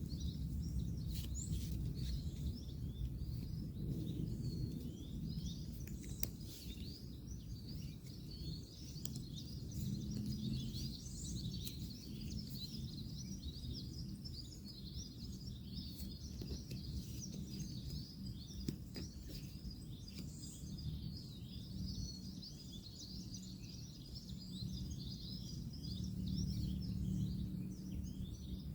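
Woodland ambience: many small birds chirping continuously, over a steady low rumble of distant road traffic, with a few faint clicks.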